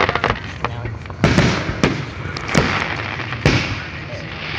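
Aerial fireworks shells bursting: a quick crackle at first, then four sharp booms less than a second apart, each trailing off in an echoing rumble.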